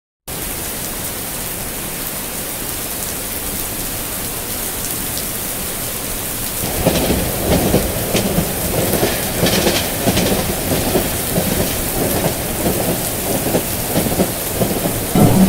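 Recorded rain ambience from a sound-effects app, starting abruptly as a steady hiss. About six and a half seconds in, a louder, uneven rumble like thunder joins the rain.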